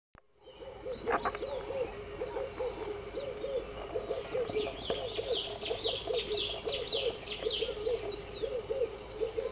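Birds calling in a morning garden: a low two-note call repeated steadily, and a run of about ten quick high down-slurred notes in the middle.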